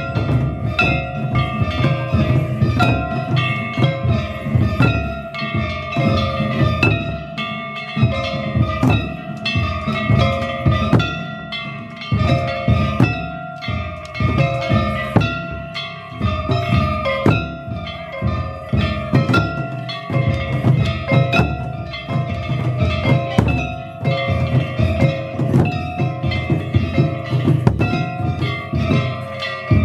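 Shishimai lion-dance music: taiko drums struck rapidly and steadily under the ringing of small metal hand gongs.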